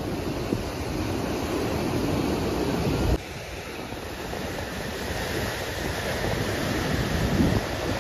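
Sea surf washing against a boulder seawall, with wind rumbling on the microphone. The noise drops suddenly about three seconds in.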